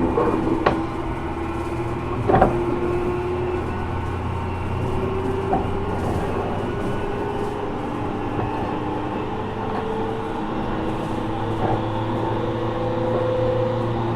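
Interior running sound of a JR Kyushu 415 series 1500-subseries electric multiple unit's motor car, a car listed as having an abnormal noise. Steady traction-motor and gear whine in several tones that drift a little in pitch, over a low hum, with a couple of sharp knocks from the wheels crossing rail joints in the first few seconds.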